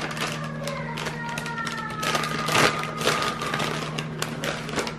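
Plastic packaging crinkling and clicking as it is handled, over a steady low hum.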